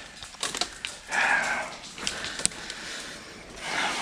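A person's noisy breathing close to the microphone, two breaths about a second in and near the end, with a few sharp clicks in between.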